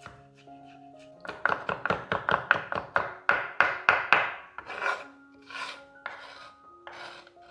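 Knife cutting food on a cutting board, a quick run of rasping strokes about five a second, then a few slower strokes near the end, over soft background music.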